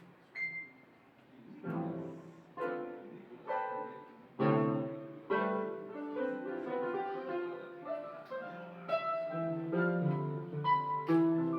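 Electronic keyboard playing a piano-like sound: a single high note, then a run of sustained chords struck roughly once a second from about two seconds in, being tried out as a sound check.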